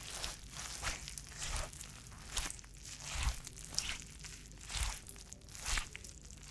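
A mop pushed back and forth across a floor: repeated swishing strokes, a little more than one a second, some with a dull thump.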